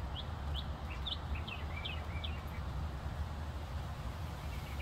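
A songbird singing a quick run of about eight short, downward-slurred whistled notes, roughly three a second, in the first two and a half seconds, over a steady low rumble.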